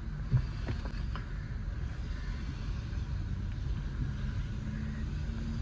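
Car engine running at low speed, heard inside the cabin as a steady low rumble, with a single short click about a third of a second in.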